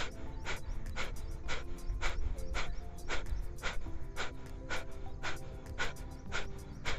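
Kapalbhati breathing: short, forceful exhalations through both nostrils in an even rhythm, about two a second, clearing leftover salt water from the nose after a neti-pot rinse. Quiet background music holds steady tones underneath.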